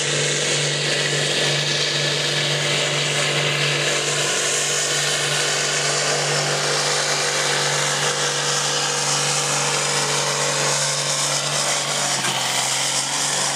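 IHC 1455 diesel tractor engine running flat out under full load as it drags a weighted pulling sled: a loud, steady drone that eases slightly near the end.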